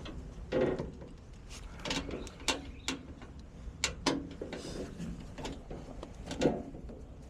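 Irregular clicks, knocks and short scrapes of hands working with tools and furnace parts, with the loudest knock about six and a half seconds in.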